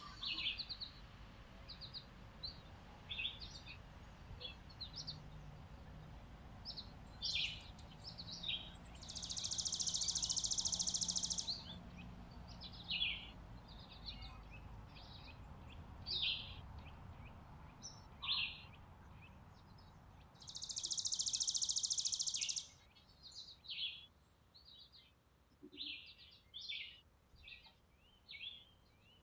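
Small songbirds, chickadees among them, calling with many short high chirps. Two long, even trills of about two seconds each stand out as the loudest sounds, one about a third of the way in and one about two-thirds in.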